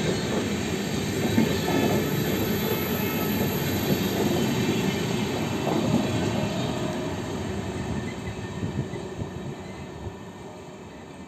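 LHB passenger coaches of an express train rolling past on the rails with a heavy, steady rumble of wheels on track. It fades away over the last few seconds as the end car moves off into the distance.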